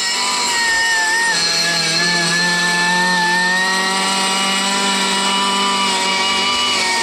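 Air-powered grinder of a lawnmower blade sharpener running at full speed with a steady high whine, its pitch dipping slightly about a second in as it bears on the blade while sharpening the mower blade in place.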